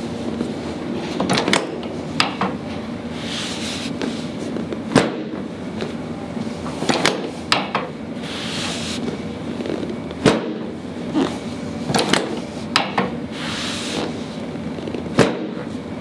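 A series of sharp clacks and clicks, about nine of them at irregular intervals, from a chiropractic adjustment of the pelvis and low back on a segmented adjusting table, with softer rustling between.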